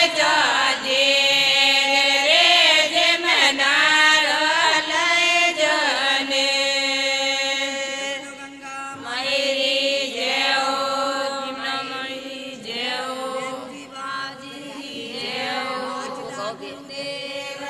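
Women's group singing a Rajasthani Marwari devotional song to Mother Ganga in chant-like unison, long held notes over a steady drone, with a short break about halfway through.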